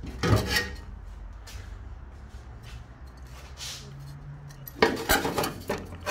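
A cut-out piece of rusty sheet steel knocking and scraping against the car's sheet-metal body as it is handled and held in place, with a short knock about half a second in and a quick run of metallic clicks and clatters near the end.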